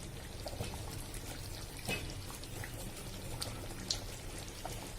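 Yam tamarind curry simmering in the pan, bubbling with scattered soft pops and ticks. The oil has separated on top, the sign that the curry is done.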